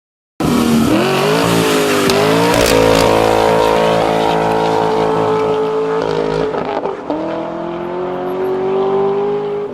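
2017 Dodge Challenger T/A 392's 6.4-litre HEMI V8 through a Tunnel Ram performance exhaust, accelerating hard. It cuts in abruptly, the revs climb and hold high, drop at a gear change about six seconds in, then climb again.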